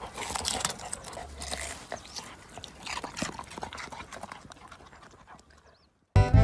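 A dog, heard as scattered clicks and knocks over a noisy background, fading away over about five seconds. Music starts just before the end.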